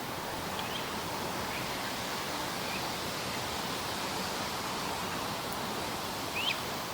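Morning forest ambience: a steady rushing hiss with a few faint bird chirps, and one louder, quick bird chirp about six and a half seconds in.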